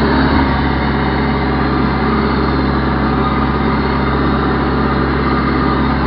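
Backhoe loader's engine running steadily at an even speed while the machine is driven in a low gear.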